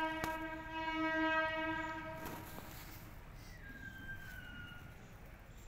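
A horn sounding one steady, unwavering note for about two and a half seconds, then stopping; a few faint, high, gently falling tones follow near the end.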